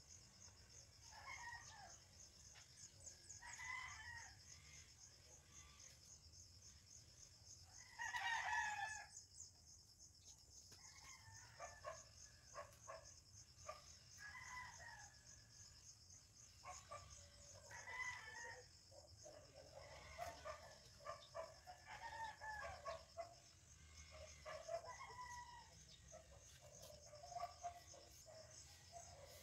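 Chickens calling again and again, with one louder call about eight seconds in, over a steady high pulsing trill of insects.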